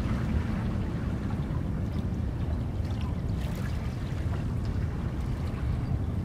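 Wind rumbling on the microphone: a steady, uneven low rumble with a few faint high ticks over it.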